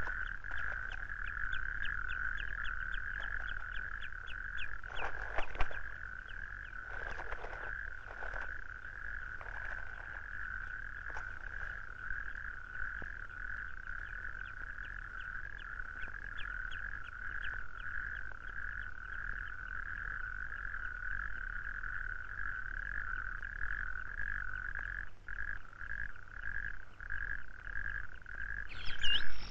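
Chorus of trilling frogs: one steady, fast-pulsed trill that runs on unbroken, with a few brief louder noisy sounds in the first eight seconds.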